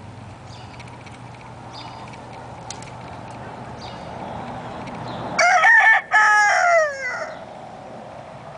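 A rooster crowing once, loudly, about five seconds in: a short opening syllable, a brief break, then a long held note that falls in pitch at the end. A low steady hum runs under the first four seconds.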